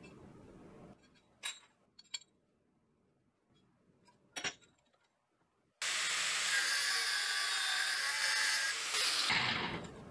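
A few light metallic clinks on a steel nail held in a bench vise. Then, about six seconds in, an angle grinder grinds the nail's end with a loud, steady grinding noise for several seconds, easing off near the end.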